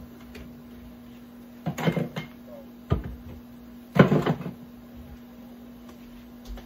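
Kitchen clatter: a few knocks and rattles of cupboard doors and items being handled at a lower cabinet and counter, the loudest and longest about four seconds in. A steady low hum runs underneath.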